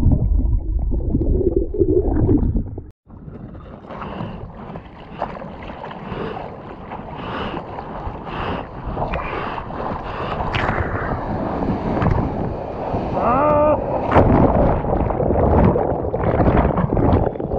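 Muffled, low underwater churning from a wave breaking over a submerged GoPro housing. After a short dropout about three seconds in, choppy sea water splashes and sloshes against the housing at the surface, growing louder.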